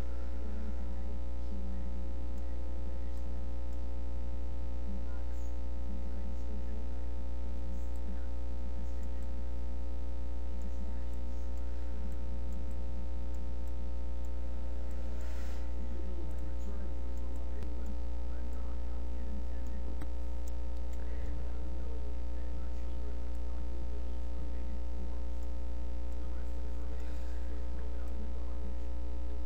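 Steady electrical mains hum with a buzz of many overtones, unchanging throughout. A few faint clicks show through it.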